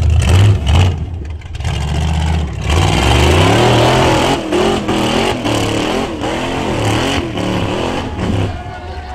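Rock racing buggy's engine revving hard again and again, its pitch swinging up and down as it climbs a rocky dirt hill. Several sharp knocks come through the revving, and the engine eases off near the end.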